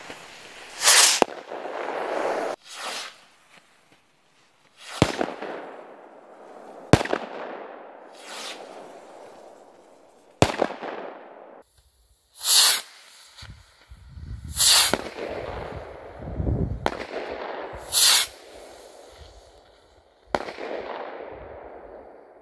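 Firework rockets fired one after another from a homemade radio-controlled launcher: about ten sudden launch blasts and bangs spaced a second or few apart, each trailing off in a long fading echo.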